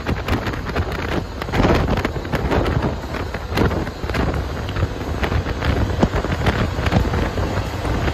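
Wind buffeting the microphone on a moving Polaris RZR side-by-side, over the machine running, with many small knocks and rattles from the ride.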